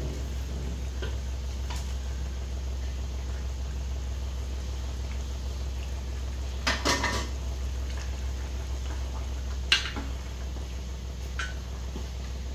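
Stainless steel pot lid and ladle clattering and clinking against steel cookware: a short clatter about seven seconds in, a single sharp clink near ten seconds, and a smaller one after it, over a steady low hum.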